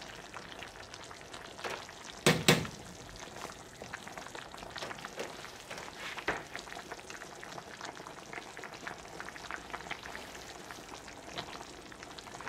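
Pot of chicken soup simmering on a gas stove, turned down low to soften the vegetables: a steady fizzing and popping of small bubbles. A short knock about two seconds in.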